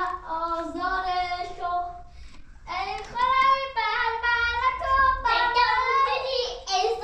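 A young child singing in a high voice, holding and sliding between notes, with a short pause about two seconds in.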